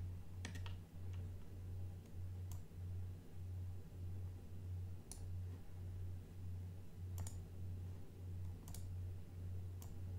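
Computer mouse clicking, about six single sharp clicks spaced one to two seconds apart, over a low hum that pulses evenly.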